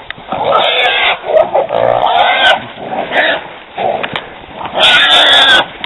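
Wild hog held by catch dogs, squealing in a series of loud, drawn-out squeals.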